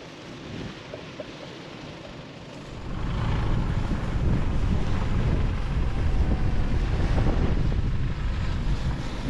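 Wind buffeting the microphone: a rough, fluttering rumble that gets much louder about three seconds in.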